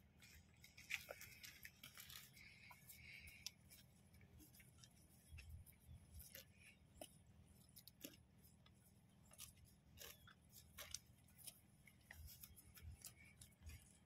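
Faint, irregular snips and crunches of zebras cropping and chewing grass, over a low steady background rumble.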